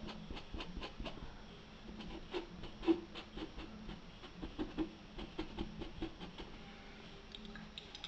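Paintbrush dabbing and stroking on painted fabric: faint, irregular scratchy ticks, several a second, thinning out near the end.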